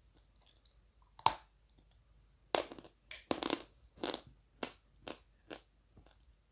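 A person biting into and chewing hard, dry lumps of edible clay close to the microphone: one sharp snap about a second in, then a run of crunches, roughly two a second, from about two and a half seconds in.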